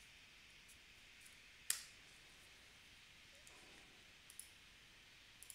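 Near silence broken by a few faint computer keyboard key presses. One sharp key click, about two seconds in, is clearly the loudest; a pair and a small cluster of softer clicks follow near the end.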